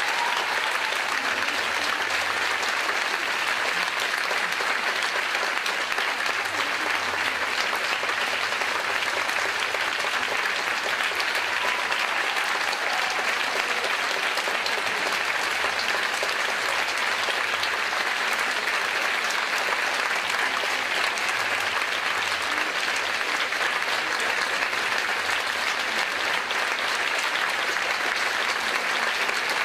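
Theatre audience applauding steadily, a sustained ovation of many people clapping at once.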